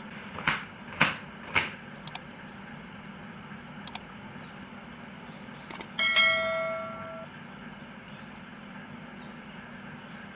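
Three quick swishes about half a second apart, a few light clicks, then a single metallic clang that rings for about a second, over a steady low hum.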